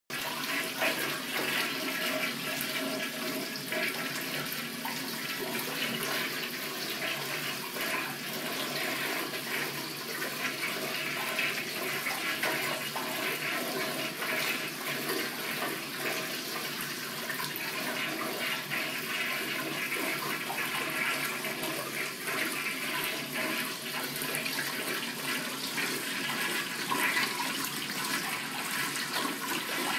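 Commercial toilet with a chrome flushometer valve flushing without stopping, water rushing and swirling steadily in the bowl: the flush valve is malfunctioning and never shuts off.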